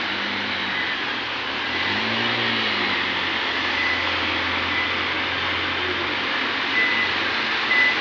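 Trucks and cars driving through floodwater: a steady rush of water with engines running, one engine's pitch swelling and dropping away about two seconds in.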